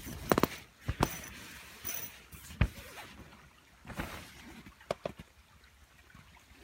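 Rustling and a scattering of sharp clicks and knocks, with a cluster of quick clicks right at the start and single knocks every second or so after: handling and movement noise from someone moving about.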